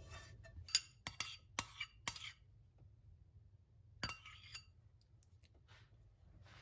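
A metal utensil and pan clinking and scraping against a ceramic bowl as stir-fried instant noodles are served: a run of sharp clinks in the first two seconds, then a few more about four seconds in as a topping is spooned on.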